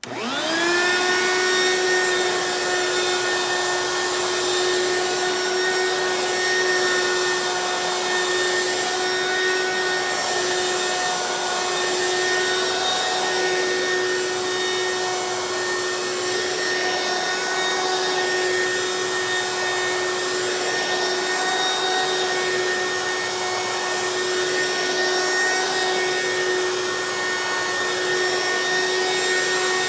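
Hoover Quik Broom Encore S2551 straight-suction stick vacuum switched on and winding up over about a second, then its motor running steadily on its high-speed setting with a constant whine over rushing airflow, vacuuming a low-pile area rug.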